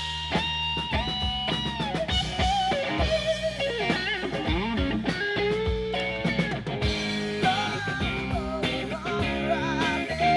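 Rock band playing: a Telecaster-style electric guitar over a drum kit, with a voice singing.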